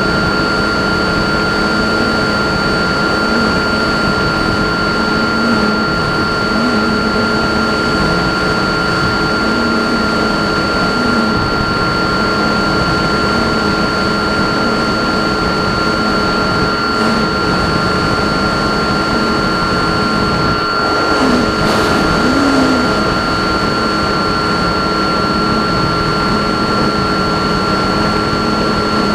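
RC plane in flight: a steady propeller and motor drone with constant whining tones over a rush of air noise, the pitch wavering slightly, as picked up on board.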